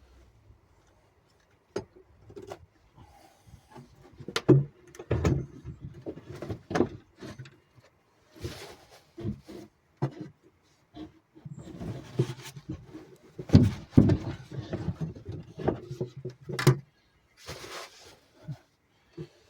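Irregular knocks, clicks and rustling of hand work on fittings and parts, in short clusters with pauses between them.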